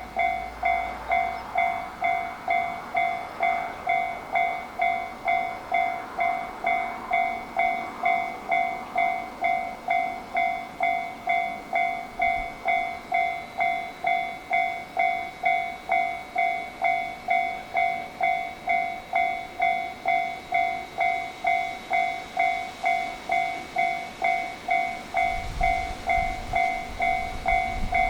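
Japanese level-crossing warning bell ringing steadily, an electronic two-tone ding repeating about twice a second. A low rumble comes up briefly near the end.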